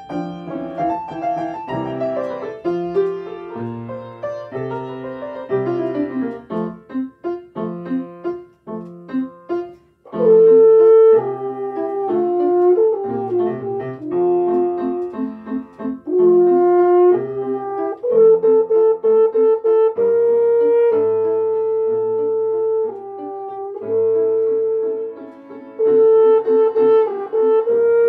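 French horn playing a melody over piano accompaniment. The first ten seconds hold quicker, quieter notes, then the horn comes in loudly with long held notes.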